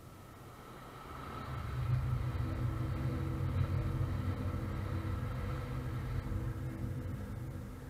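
ÖBB Railjet passenger train, led by an electric locomotive, passing at speed. A deep rolling rumble with a steady hum over it builds about a second in, holds, and fades toward the end as the last car goes by.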